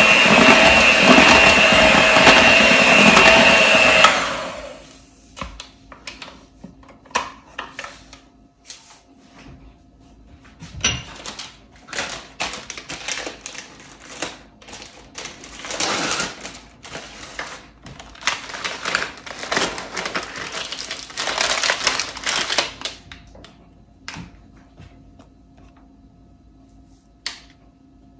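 A small electric kitchen motor runs steadily with a whine, beating or chopping cheesecake ingredients, and cuts off about four seconds in. After that come scattered clicks, knocks and short scraping sounds of utensils and bowl being handled.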